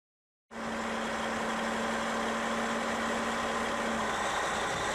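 Caterpillar D11 bulldozer's diesel engine running steadily, cutting in abruptly about half a second in.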